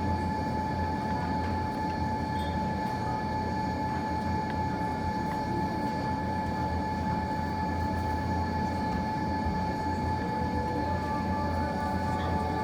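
Steady mechanical hum: a low drone with a few constant whining tones over an even rush of noise, with one or two faint clicks.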